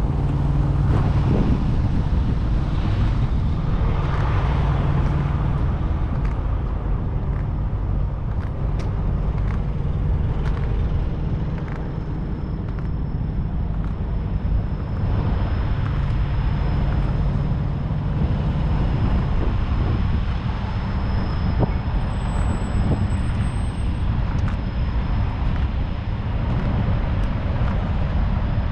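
Semi-truck diesel engines running across a truck stop lot: a steady low rumble, with one engine's hum most prominent in the first couple of seconds.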